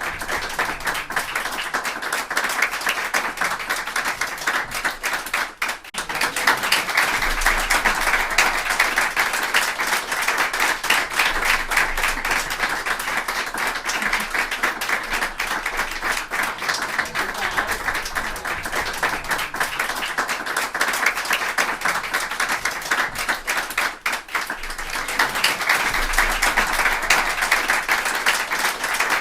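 A group of people applauding: dense, steady clapping of many hands. It dips for a moment about six seconds in and again near the end, then carries on.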